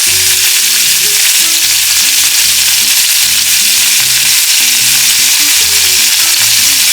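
Chicken wings sizzling loudly as they fry in olive oil in a pan, a steady dense hiss. Soft background music with low steady notes runs underneath.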